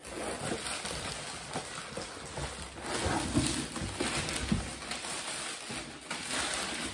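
Unpacking: a plastic bag wrapping a water jug crinkling and rustling, with cardboard box flaps rubbing, as the wrapped jug is pulled out of its box.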